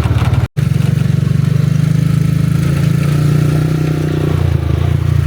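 Motorcycle engine of a Philippine tricycle taxi running steadily close by, with a fast low throbbing; the sound drops out for an instant about half a second in.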